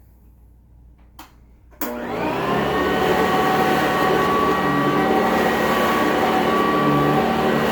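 Sanitaire SC886E commercial upright vacuum cleaner switched on: after a small click, its motor starts suddenly just under two seconds in, winds up over about a second and then runs steadily with a loud, even whine.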